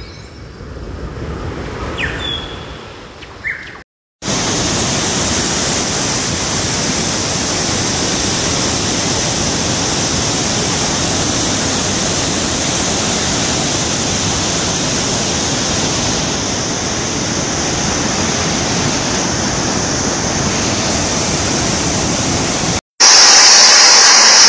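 Brief bird chirps at first. Then, after a short cut, a steady, even rushing noise with no rhythm or pitch runs on until another cut near the end.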